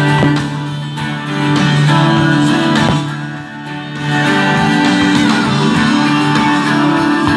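Guitar-led music playing, with a brief thump near the start and another about three seconds in.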